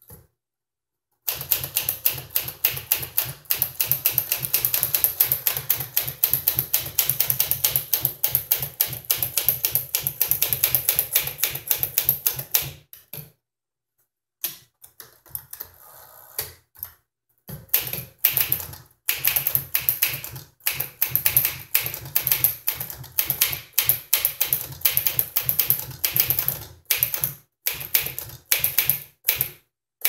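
1957 Smith Corona Silent Super manual typewriter being typed on quickly: a rapid run of key and typebar strikes, a short break about halfway through, then more typing in bursts.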